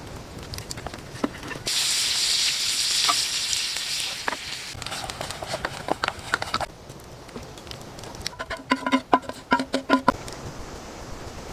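A loud sizzling hiss starts suddenly about two seconds in and fades away over the next few seconds, with scattered clicks and knocks. Near the end comes a quick run of ringing taps.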